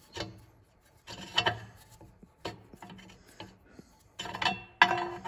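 Threaded steel bushing being screwed by hand into a Thunderbird upper control arm: short bursts of metal-on-metal scraping and clicking as the threads are turned a bit at a time. The bushing is stiff to turn by hand and, he thinks, wants to go in crooked.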